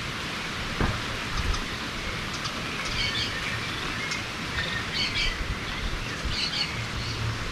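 Birds chirping in short repeated phrases every second or two over a steady background hiss.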